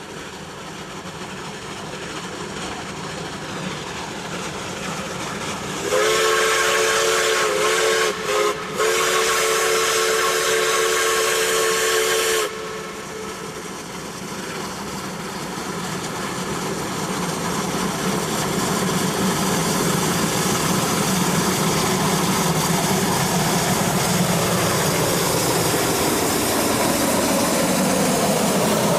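Lima Shay geared steam locomotive working hard under a log train as it approaches, its exhaust and running gear growing steadily louder. About six seconds in, its steam whistle sounds a chord-like blast of about six seconds: a long blast, a quick short toot, and another long blast.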